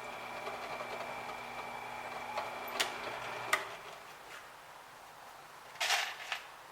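Electric drill running steadily as holes are drilled through a Kydex sheath, with a couple of sharp clicks before the motor stops about three and a half seconds in. A short clatter near the end.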